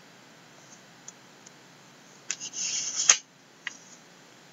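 A computer mouse being handled: a few faint clicks, then a short scratchy rustle a little past halfway that ends in a sharp click, and one more click soon after.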